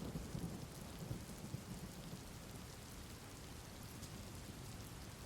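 Steady rain falling, with low rumbling thunder in the first second or two that then fades, leaving an even hiss of rain.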